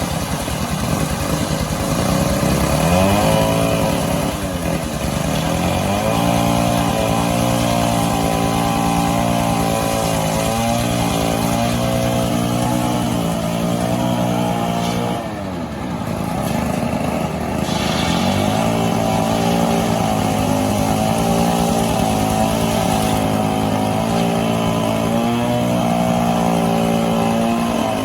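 Two-stroke chainsaw running at high revs, as when cutting through mahogany wood, with a steady pitch under load. It eases off twice, once a few seconds in and once about halfway through, before revving back up.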